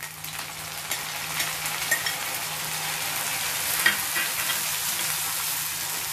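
Boiled cluster-bean pieces hitting hot oil and fried onions in a wok: a steady sizzle that jumps up as they go in, with a metal spoon clinking against the pan a few times as they are stirred.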